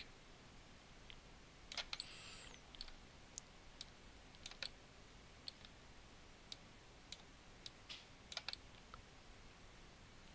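Faint, sparse clicks of a computer mouse and keyboard, a dozen or so single taps spread unevenly over a near-silent background.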